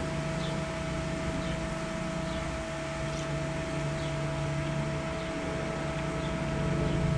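Steady mechanical hum with a constant pitch, like a running motor or fan unit, with a few faint short high chirps now and then.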